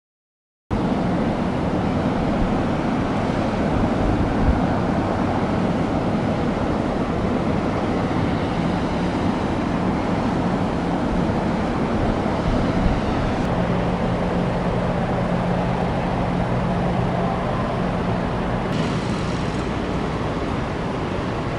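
Steady low rumble of idling engines around a berthed car ferry, with a steady low hum joining in for about five seconds in the second half.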